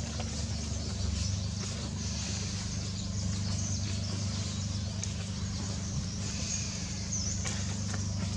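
Steady outdoor background: a constant low rumble with faint high chirps and a few light clicks.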